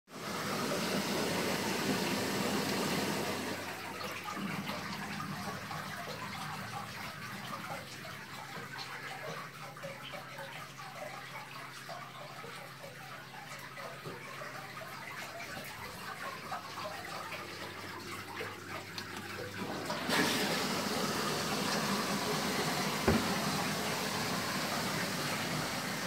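Indoor water-wall fountain with an extra splashing circulation that imitates a waterfall: loud splashing at first, cut off about three and a half seconds in, leaving the quieter patter of water running down the wall. The extra circulation is switched back on about twenty seconds in and the loud waterfall-like splashing comes back at once, with a single short knock a few seconds later.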